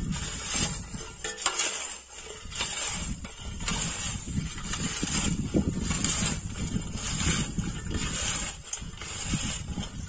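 Hand-pushed single-wheel weeder being pushed through dry, powdery rotavator-tilled soil. Its sweep blade makes a rhythmic scraping hiss about three times every two seconds, over a low rumble.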